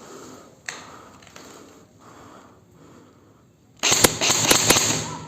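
Airsoft rifle firing a quick string of shots about four seconds in, sharp cracks over a loud rush. Before that there is a quiet stretch with a single click.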